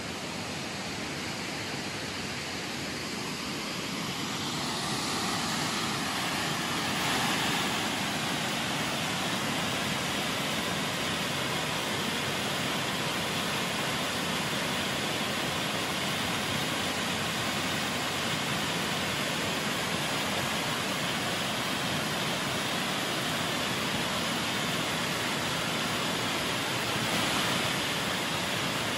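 Rushing water of a gorge river or waterfall: a steady, even roar that grows louder a few seconds in.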